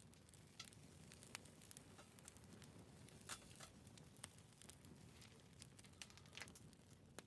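Faint crackling of burning firewood: irregular pops and snaps over a low, steady rush.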